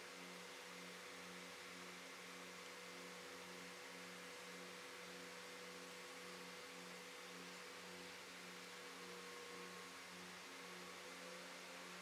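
Faint, steady hum of a distant engine running at an even speed, a low drone with a slow, regular pulse and a fainter higher tone above it.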